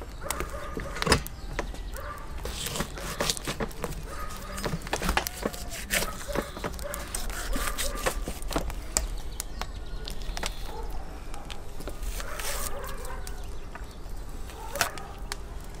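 Butcher's knife cutting and scraping through a raw lamb carcass, with many short clicks and knocks of the blade and meat against a wooden cutting board.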